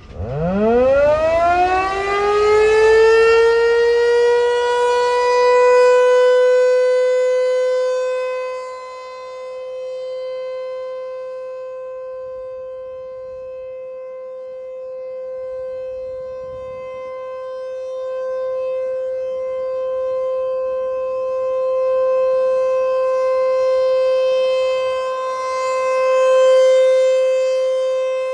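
T-128 nuclear-plant emergency warning siren sounding a full-volume test: it winds up from a low growl to a high steady wail within about three seconds, then holds one pitch while its loudness rises and falls.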